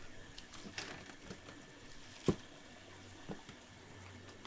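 Hands handling coils of raw sausage in stainless steel trays: soft squishing and crinkling of plastic, with a sharp knock a little past two seconds in and a lighter one about a second later.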